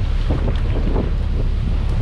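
Fishing boat's engine running steadily under wind buffeting the microphone, with scattered small knocks and rustles.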